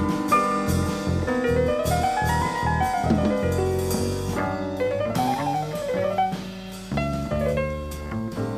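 Small jazz group playing: a grand piano solo with fast runs that climb and fall in the middle, over drums and double bass.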